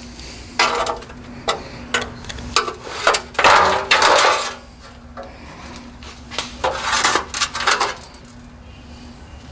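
Irregular clatter and knocks of hand tools and metal engine parts being handled, with a longer scraping rattle about three to four and a half seconds in, over a faint steady hum.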